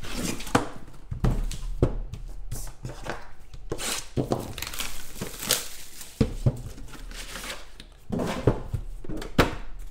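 Hands pulling a sealed trading-card box out of a cardboard case and tearing off its paper wrapper: irregular crinkling and tearing with scattered sharp knocks and clicks of cardboard being handled.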